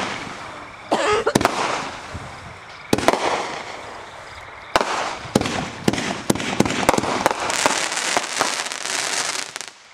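Fireworks display: aerial shells bursting overhead, about ten sharp bangs at irregular intervals, then a burst of dense crackling in the last two seconds that stops abruptly.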